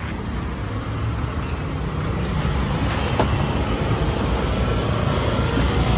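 Road traffic rumble, steady and low, growing gradually louder, with one sharp knock about three seconds in.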